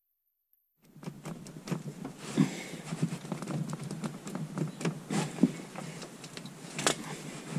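Irregular light knocks, creaks and rustling as a Volkswagen Golf Mk1 cabriolet's rear window is pushed out of its soft-top frame from inside the car. The sound begins after about a second of silence.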